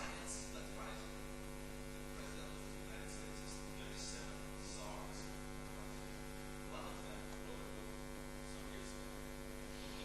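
Steady electrical mains hum over faint hiss, with a few short, soft hissy sounds coming and going.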